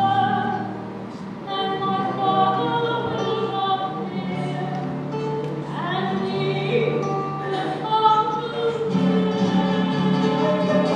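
Church choir singing a sacred piece, with steady held low notes from an accompanying instrument beneath the voices.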